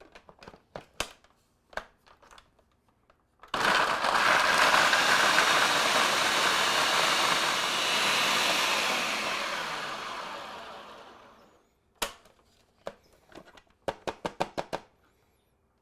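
Blender grinding a freeze-dried hamburger patty into powder: it starts suddenly about three and a half seconds in, runs loud for several seconds, then dies away and stops about twelve seconds in. Clicks and knocks of the blender lid and jar being handled come before and after it.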